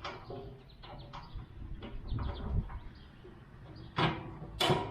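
Metal clunks and knocks of a Weber Spirit gas grill's top being set down onto the pins of its base, ending in two loud knocks near the end as it seats.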